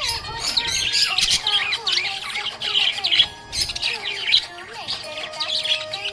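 Budgerigar chirping and warbling in a steady stream of quick, high chirps and short wavering notes.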